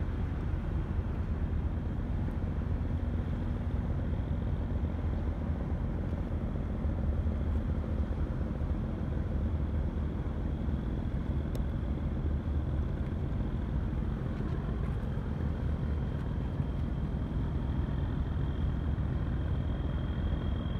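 Passing container ship's engine heard across the river as a steady low rumble. A faint, thin, high whine comes in about halfway through and grows toward the end.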